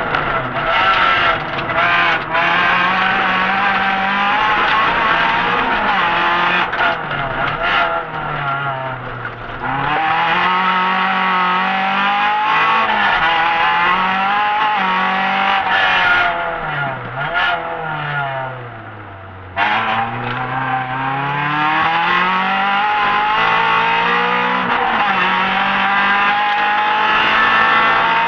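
Honda Civic rally car's engine heard from inside the cabin, revving hard through the gears, its pitch climbing and dropping at each gear change. Twice, around ten and twenty seconds in, the revs fall low and the engine quietens before pulling hard again.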